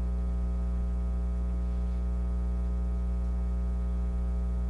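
Steady electrical mains hum with a buzzing row of overtones, running unchanged with no other sound over it.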